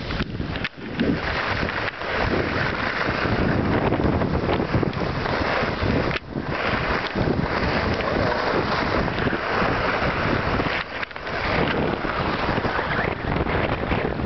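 Wind rushing over the microphone of a skier going downhill, mixed with skis scraping and hissing over packed snow. The noise drops out briefly a few times.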